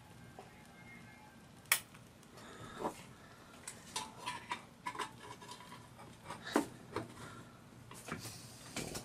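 Scattered light metallic clicks and knocks, some with a short ring, as the sheet-metal fuel tray of a Wilesco D4 toy steam engine is slid into the firebox and the engine is handled by hand.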